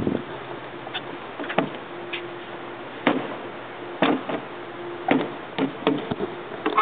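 A toddler knocking about among hollow plastic stadium seats: a series of sharp, irregular knocks and taps, roughly one a second, over a faint steady hum.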